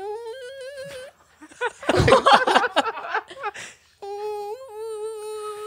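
A man imitating a koala with his voice: a held, slightly rising whine lasting about a second, then laughter, then a second long held whine from about four seconds in.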